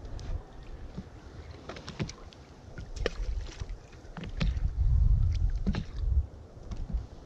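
Wind rumbling on the microphone and water slapping against an inflatable boat's hull, loudest about halfway through, with scattered light clicks and knocks.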